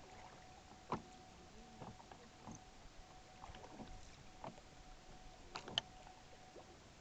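Rowboat oars working in their oarlocks: a series of irregular wooden-metal knocks and creaks with the strokes, with water splashing off the blades. The sharpest knocks come about a second in and again near the end.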